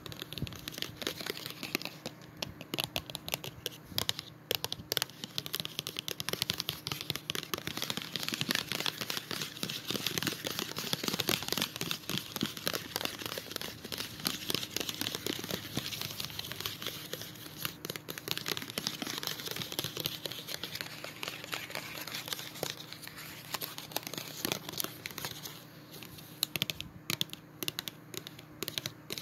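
Foil and plastic gum packaging being crinkled, a dense run of small crackles that thins to scattered ticks near the end.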